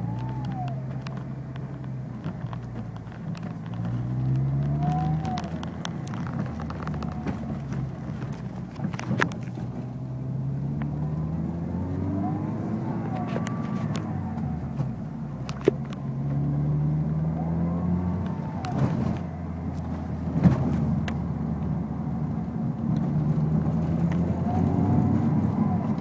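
Peugeot 207 RC's 1.6 turbo engine pulling up through the revs several times, with a thin whistle above it that rises and falls in pitch along with each pull; the owner calls it a strange whistle. A few sharp clicks are heard here and there.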